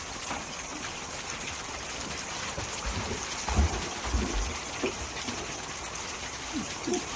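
Floodwater sloshing and splashing around a makeshift raft being poled along and a dog swimming beside it, over a steady wash of water. A few dull low knocks come about three to four and a half seconds in, with a few short squeaky sounds.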